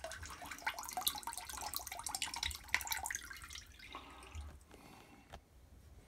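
Faint dripping and trickling of water from a refrigerator's water supply line into a bucket, heard as scattered small drips that thin out after about four seconds. This is the weak flow of a low-flow fault that the owner blames on the water filter.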